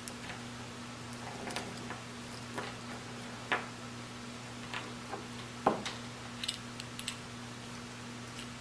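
Irregular light clicks and clinks of a small metal chain and its fitting being handled by hand, over a steady low hum.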